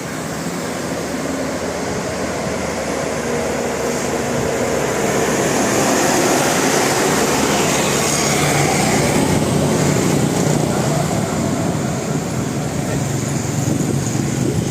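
Vehicle engine and road noise, building up over the first few seconds and then holding steady.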